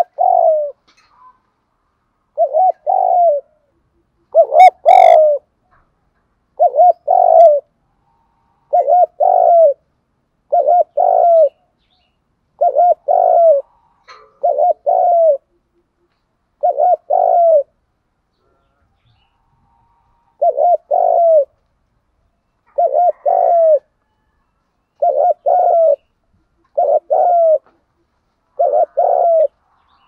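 Spotted dove cooing in short two- or three-note phrases about every two seconds, with a pause of a few seconds midway. This is the 'thúc gù' call that decoy doves use to stir up wild doves.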